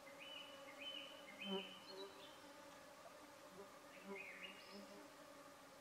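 Faint steady insect buzz, with a few short high chirps near the start and again after the middle.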